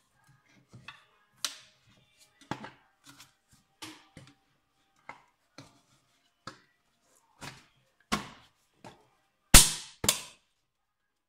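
Irregular knocks and clicks of hand tools and parts being handled, about fifteen over the stretch, with the two loudest knocks close together near the end.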